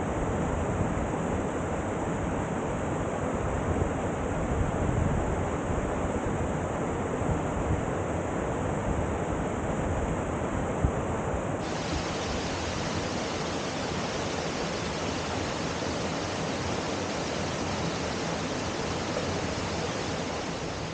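Wharnley Burn waterfall pouring, a steady rushing of falling water.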